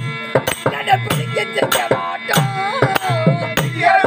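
Therukoothu street-theatre music: a hand drum beating a quick, regular rhythm of about three strokes a second, with sharp clicks and a wavering melody line above it.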